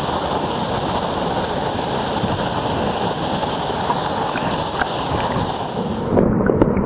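A 16 m waterfall's falling water, a loud, steady rush. About six seconds in the sound turns rougher and louder in the low end, with crackles, while the hiss at the top drops away.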